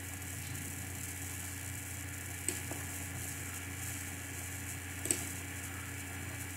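Steady low hum and hiss of room tone, with two light computer-mouse clicks about two and a half seconds apart.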